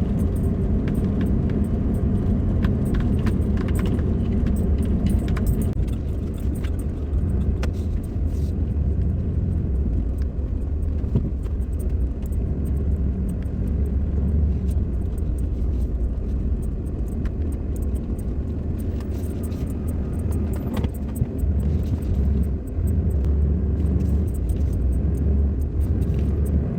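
Steady road and engine rumble inside a moving van, with occasional light clicks and rattles.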